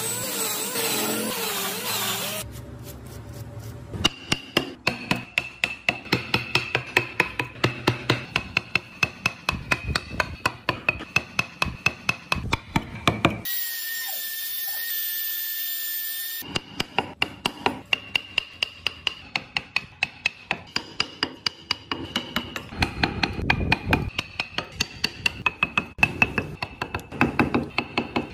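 Hand and power tools working hardwood. A drill bores into the wood for about two seconds at the start. Then comes a run of sharp, regular mallet-on-chisel taps, about four a second, broken for about three seconds midway by the steady high whine of a small trimmer router cutting. The tapping then resumes.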